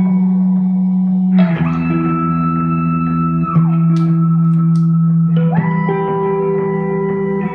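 Looped electric guitar drones through a pitch shifter and a self-oscillating analogue delay, swept by an expression pedal. A low drone holds underneath while higher tones slide down and back up in pitch. New layers come in about a second and a half in and again past five seconds.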